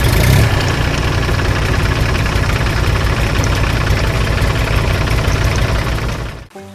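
Combine harvester engine running steadily with a fast low throb; it cuts off suddenly near the end.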